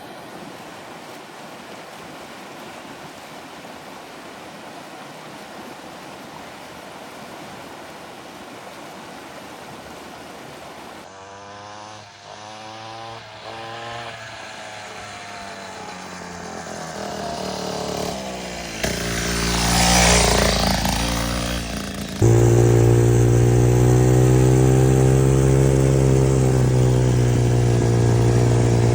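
A vehicle engine comes in after about eleven seconds of steady background noise. It revs up and drops back several times as it draws closer and louder, then runs loud and steady close by from about two-thirds of the way in.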